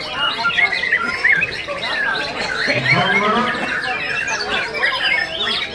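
Many songbirds singing at once, mainly white-rumped shamas on the contest hanging posts: a dense tangle of overlapping whistles and chirps.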